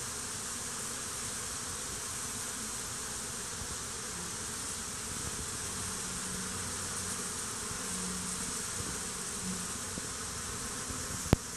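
Steady buzzing drone of a mass of honey bees swarming and fighting among themselves. A single sharp click sounds near the end.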